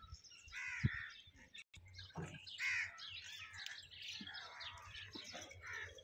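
Many birds chirping and calling over one another, with crows cawing among them.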